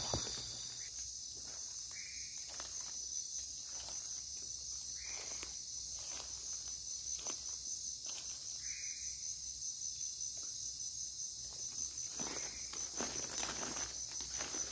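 Nocturnal rainforest insect chorus: crickets and other insects trilling steadily at a high pitch, with a fine pulsing texture. Irregular footsteps through undergrowth sound every second or so.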